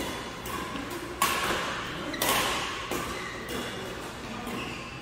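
Badminton rally: rackets striking the shuttlecock with sharp pops, several times. The loudest hits come about a second in and just after two seconds, echoing briefly in the hall.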